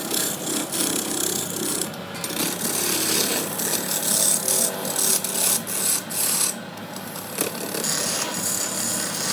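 A tool rasping against brass, a continuous scraping noise that swells and dips.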